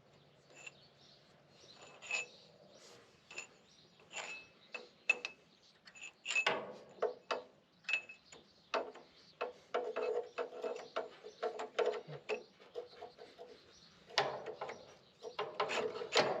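Hand tools working on an engine: a ratchet wrench clicking in quick runs, mixed with scattered metal clinks and knocks.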